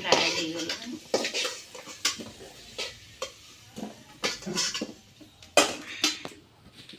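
A metal utensil scraping and clinking against a steel kadai and a steel plate as fried potato pieces are lifted out of the pan: a series of separate clinks and short scrapes, the sharpest about five and a half seconds in.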